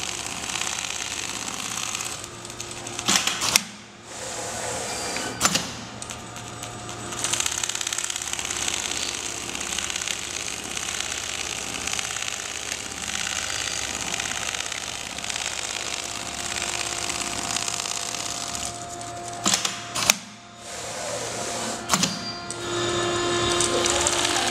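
JOOKE CNC template sewing machine quilting a down-jacket sleeve panel: a steady, rapid needle clatter. It is broken by a few sharp clicks and two short stops, and a steadier hum comes in near the end.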